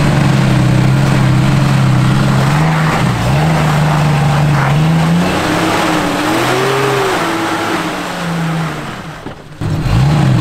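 Jeep Cherokee XJ engine working under load as it crawls up a steep rock ledge. It holds steady revs at first, then the revs dip and rise as the driver feeds throttle on the climb, and the sound breaks off briefly near the end.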